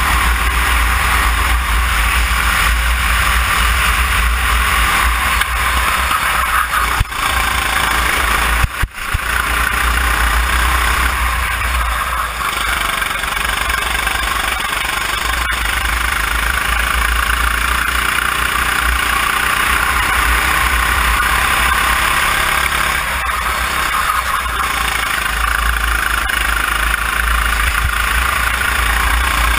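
Onboard sound of a Sodikart RT8 rental kart's four-stroke engine running at speed around a track, its pitch rising and falling as the driver accelerates out of corners and lifts into them. Wind rumbles on the microphone, and the sound drops out briefly twice in the first ten seconds.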